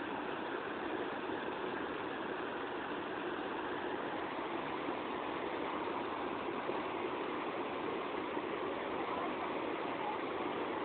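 Steady rushing of a waterfall, an even wash of falling water with no splash or other distinct sound standing out.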